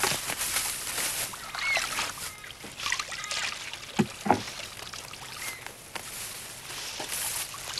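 Rustling and crackling in long grass on a lakeside bank, with a few short chirps. Two sharp wooden knocks sound about four seconds in, as a long pole is passed up from a rowboat.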